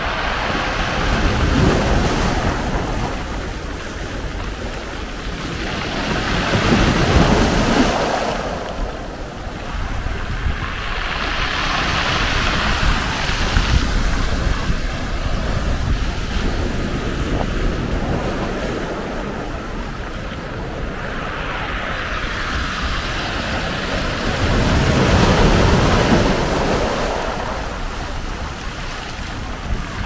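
Sea waves breaking and washing up a pebble beach and against rocks. The surf swells and falls every several seconds, with its biggest surge near the end, over the low rumble of wind on the microphone.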